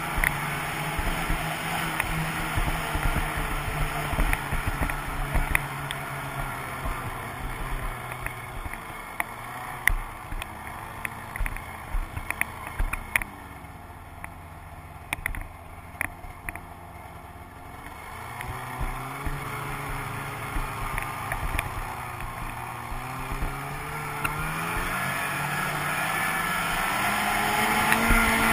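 Snowmobile engine running along a trail, with scattered sharp knocks. Midway it eases off to a lower, quieter pace, then its pitch rises and it gets steadily louder as it speeds up toward the end.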